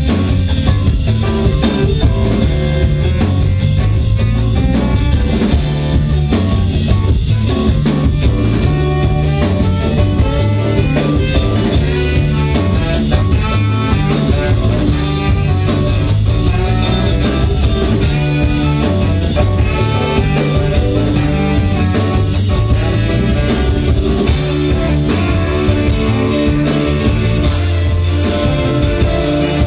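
Loud live band music with drum kit, guitar and a saxophone section playing a steady rock-style groove.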